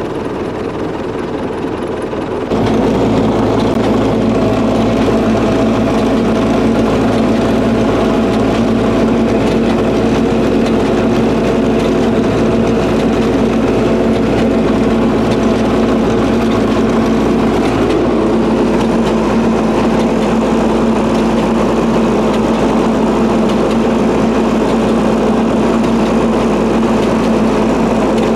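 MTZ-952 tractor's diesel engine running steadily as it pulls a potato planter across the field. The first couple of seconds are quieter, then the engine sound steps up and holds steady.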